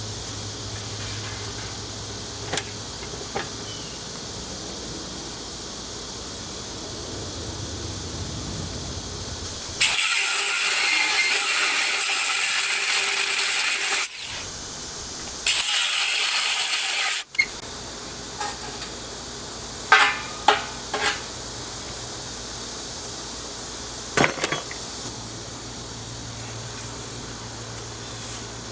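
Workshop tool noise: two loud bursts of hissing, the first about four seconds long and the second about two, each starting and stopping abruptly, with scattered metal clinks and clanks before and after over a steady low hum.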